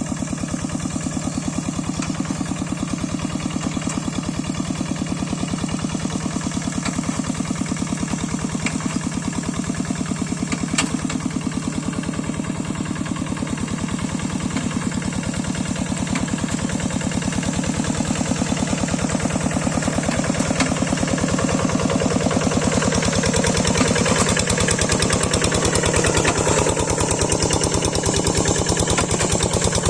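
Engine of a Quick rice-field hand tractor running steadily with a rapid, even chugging beat; it gets a little louder about two-thirds of the way through.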